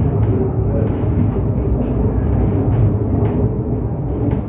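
Zugerbergbahn funicular car running uphill on its rails: a steady low rumble with light clicks.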